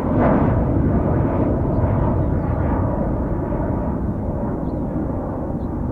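Jet airliner engine rumble, slowly fading as the aircraft moves away.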